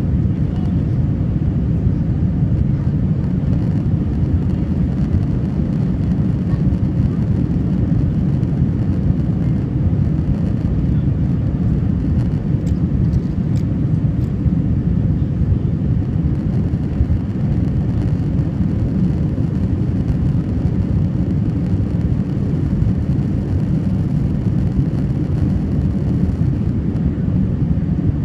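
Steady low rumble of an Airbus A320's jet engines and rushing air, heard inside the passenger cabin in flight.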